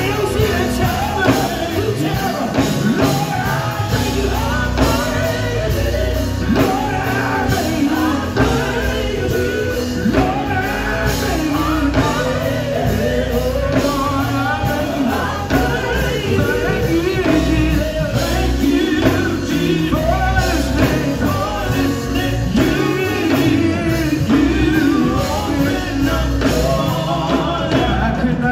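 Live gospel music: two male vocalists singing and trading lines through microphones over a band with drums and guitar.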